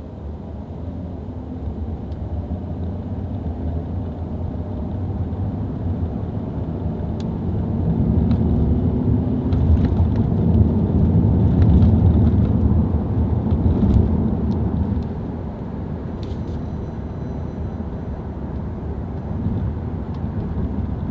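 Hyundai Aslan 3.0 V6 sedan driving on a road test after its six-speed automatic transmission was repaired, with steady engine and road rumble. The rumble builds about eight seconds in, is loudest around twelve to fourteen seconds, then eases off. No shift shock or surging is reported on this drive.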